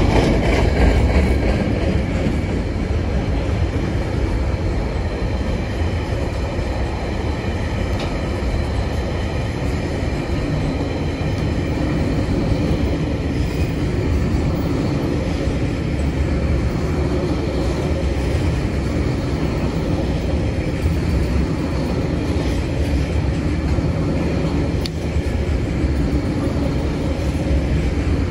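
Tasrail freight train's container and empty log wagons rolling over a level crossing, a steady rumble of wheels on rail. The crossing's warning bell rings steadily over it.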